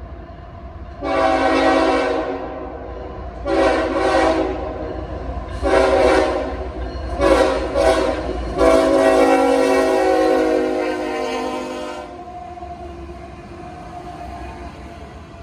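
CSX diesel freight locomotive's air horn sounding a playful string of about half a dozen blasts of different lengths, the last held for about three seconds, over the low rumble of the approaching coal train. After the horn stops, the locomotives and coal hoppers rumble past.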